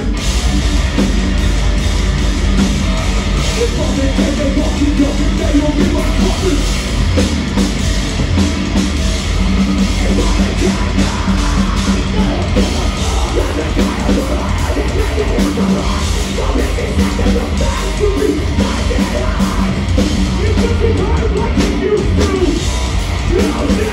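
Metalcore band playing live at full volume: distorted guitars, bass and drums with yelled vocals, heard from among the audience in a club.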